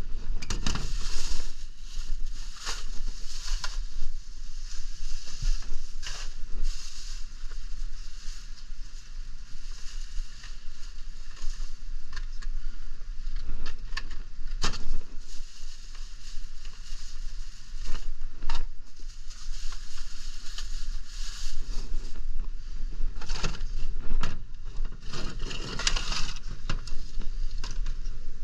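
Plastic bag crinkling and rustling as it is handled, mixed with irregular knocks and scrapes, over a steady low hum.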